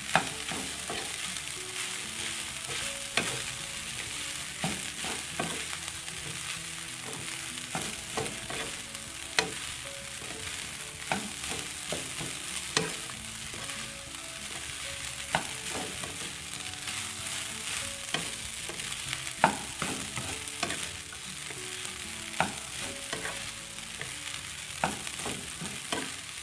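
Rice stir-frying in a nonstick wok: a steady sizzle, with the spatula scraping and knocking against the pan at irregular moments as the rice is tossed.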